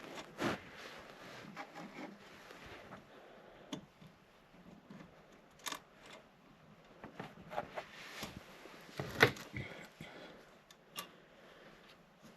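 Scattered small clicks, taps and rustling of hands working wires and small tools while reconnecting the wiring of a winch switch box, with a sharper knock about nine seconds in.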